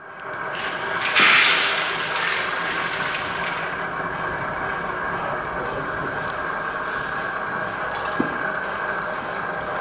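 Shelled peanuts poured from a steel basin into the stainless-steel bowl of a motorised wooden oil press (lakadi ghana): a loud rush of nuts rattling onto the metal about a second in, tapering off. Under it, the press runs steadily with a faint even hum as the wooden pestle starts turning through the nuts.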